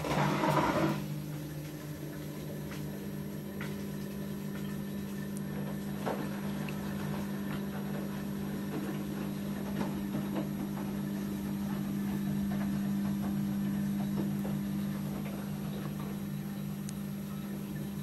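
Hotpoint-Ariston Aqualtis front-loading washing machine running, a steady hum with scattered light clicks as the drum turns. A short rush of noise comes in the first second.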